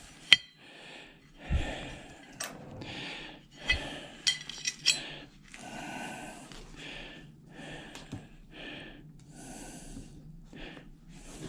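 Close, heavy breathing or sniffing, a soft puff about every second, with a few light metal clicks and clinks from parts being handled.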